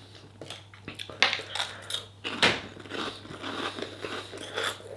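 Crisp prawn cracker being bitten and crunched in the mouth: a run of irregular crackling crunches, one louder about halfway through.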